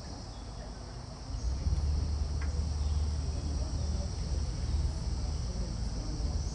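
Insects chirring in a steady high-pitched drone. From about a second and a half in, a low rumble rises beneath it.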